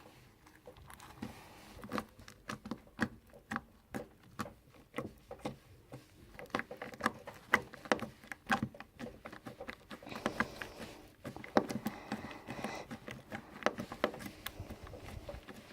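Homemade slime being squeezed and stretched by hand, giving off many quick, irregular little pops and clicks.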